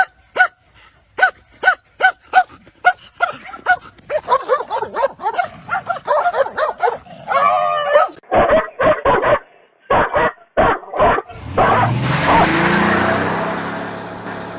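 Dog barking in a quick run of short barks, about three a second, then yapping more densely with a brief drawn-out call. Later come a set of short sharp bursts and, near the end, a loud noisy stretch.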